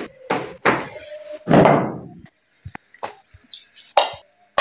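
A series of knocks and thuds of things being handled and put down, the loudest and longest about a second and a half in, with a few lighter clicks later.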